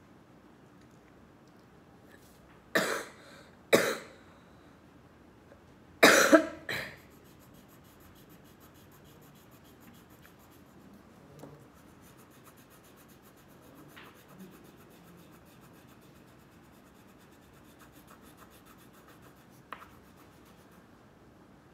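A person coughing: two loud coughs about three seconds in, then a quick pair about six seconds in. Faint crayon strokes on paper can be heard between them.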